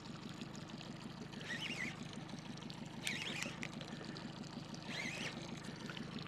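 Boat motor running with a steady low hum. Three short, wavering higher-pitched sounds come over it about a second and a half apart.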